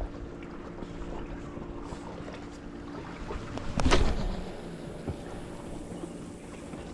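Sea waves and wind on the microphone, with one louder wave surge about four seconds in. A faint steady low hum runs under it for the first three seconds.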